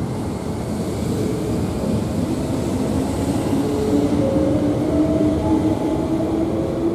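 Sanyo 3050 series electric train accelerating out of the station, wheels rolling past with a steady rumble. A motor whine rises slowly in pitch as it gathers speed.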